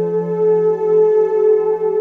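Ambient background music of long, sustained synth-like tones, a lower note fading out about halfway through.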